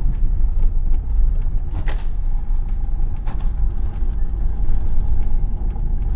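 Steady low rumble of a car driving, heard from inside the cabin, with two short ticks about two and three seconds in.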